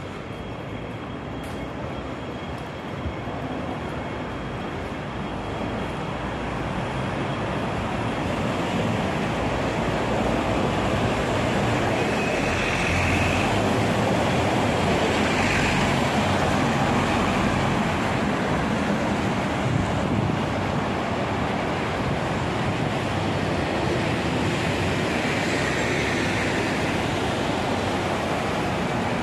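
Street traffic noise dominated by double-decker buses running close by, growing louder over the first several seconds as a bus draws alongside and then holding steady. A few brief higher-pitched squeals sound over it.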